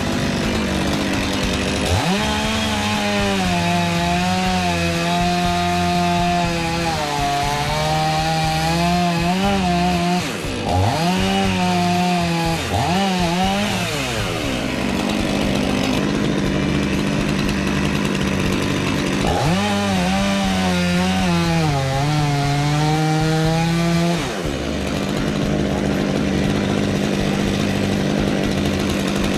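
Chainsaw cutting through wood. The engine's pitch sags as the chain bites into the cut and climbs again as it frees, with quick revs between two long cuts.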